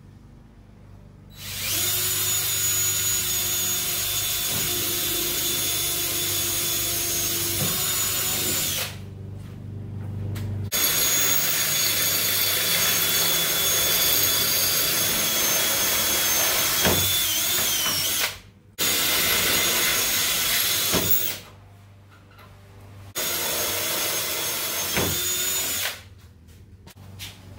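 Power drill boring holes through the hollow roof-support strut of an EZ-GO golf cart. The motor gives a steady whine in three long runs of several seconds each, with short pauses between.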